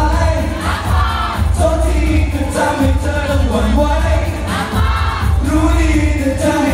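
Pop song with vocals over a heavy bass beat, played loud through a hall PA during a live stage performance.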